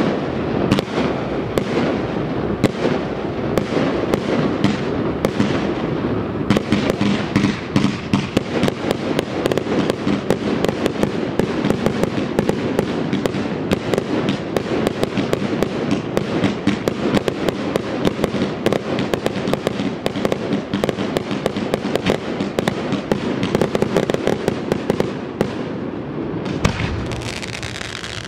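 Aerial fireworks display: a dense, continuous run of bangs and crackling as many shells burst in quick succession, easing briefly near the end.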